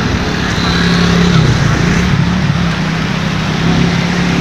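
Muddy floodwater rushing across a road, with a motorcycle rickshaw's engine running as it drives through the water; the engine note wavers about a second and a half in.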